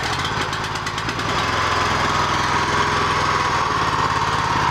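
Honda single-cylinder petrol engine on a walk-behind tractor, just started cold on one recoil pull, running steadily on choke with a little throttle. Its low note shifts slightly about three and a half seconds in.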